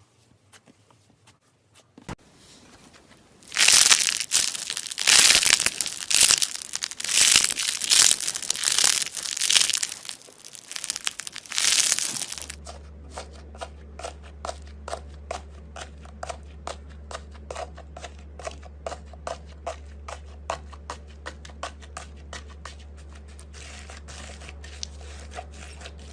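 Slime being squeezed and worked by hand, crunching and crackling loudly for several seconds. It then gives way to a quick, even run of small clicks or pops, about three a second, over a steady low hum.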